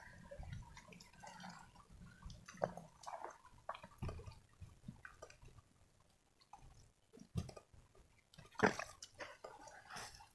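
Faint, scattered wet squelches and soft knocks of hands and a small hoe working in wet paddy mud to pull a rice-field eel from its burrow, with a couple of louder knocks about three seconds in and near the end.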